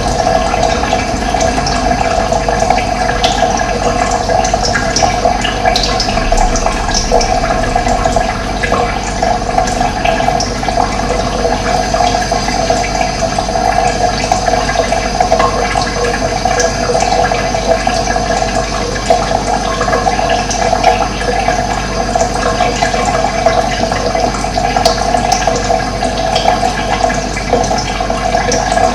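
Running water flowing steadily with an even rushing sound, with brief bird calls now and then over it.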